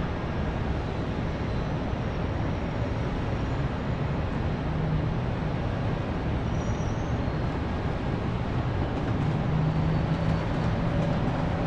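Steady rushing, rumbling noise with a faint low hum that swells twice: an ambient sound-design drone laid under an animated promo.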